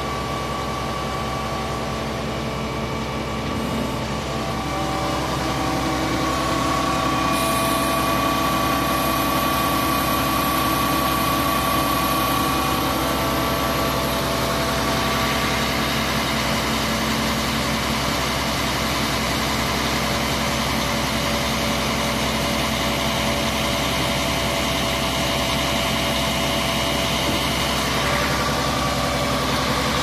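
Diesel engine of a Mercedes-Benz Actros concrete pump truck idling steadily, getting a little louder about five seconds in.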